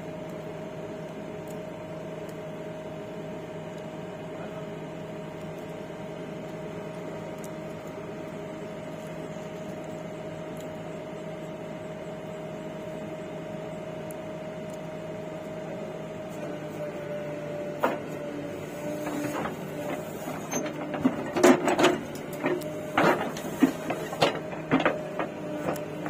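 Diesel engine of heavy earth-moving machinery running steadily with an even hum. About two-thirds of the way through, its note shifts slightly and a run of loud, sharp knocks and clunks sets in.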